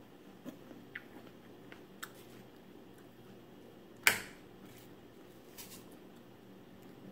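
Someone eating with a metal fork: soft chewing with a few light fork clicks, and one sharp metal clink about four seconds in, then a fainter one a second and a half later.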